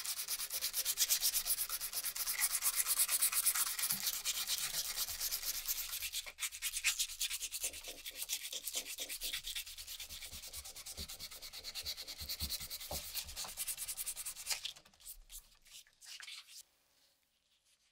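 Hand sanding a wooden handle with sandpaper: quick back-and-forth rasping strokes of abrasive on wood, stopping near the end.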